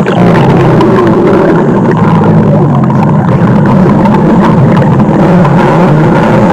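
Stomach growling: a loud, continuous low rumble that wavers in pitch without a break.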